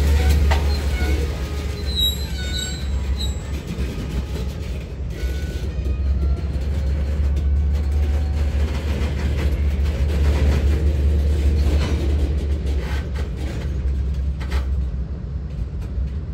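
A train running: a steady low rumble, with a few short high squeals about two seconds in.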